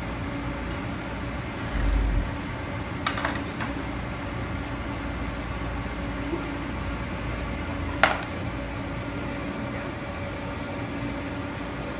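Kitchen utensils clinking against a cutting board: a dull thump about two seconds in, then two sharp clinks about three and eight seconds in, the second the loudest, over a steady background hum.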